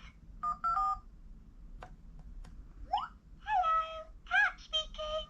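Electronic toy phone playing short phone-style keypad beeps, with sharp button clicks, a quick rising sound effect about three seconds in, and further electronic tones after it.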